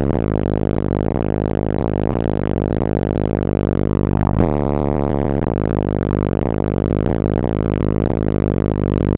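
Bass-heavy music played loud through a car audio system's wall of 18-inch subwoofers, a deep droning bass line whose pattern changes about four seconds in.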